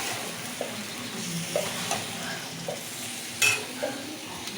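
Chicken and potatoes sizzling in masala in a kadai while a spatula stirs and scrapes them, with a few short scraping strokes and one sharp metal clink about three and a half seconds in.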